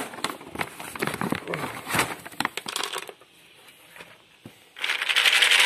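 Dry dog kibble rattling and clicking in a plastic slow-feeder bowl, with a bag crinkling: a dense run of sharp clicks and crackles. It goes quiet for a moment, then a loud steady hiss starts near the end.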